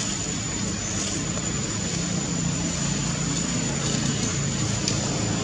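An engine drones steadily, its pitch sinking slowly, under an even hiss and a thin, steady high tone.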